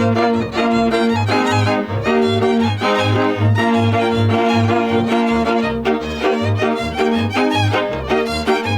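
Transylvanian folk string band playing: a fiddle carries the melody over sustained accompanying chords and bass notes that pulse about three times a second in a steady dance rhythm.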